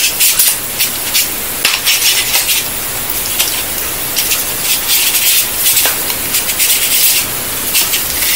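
Lytro Illum lens hood scraping and rubbing against the camera's lens barrel as it is worked on by hand, in many short, irregular scrapes.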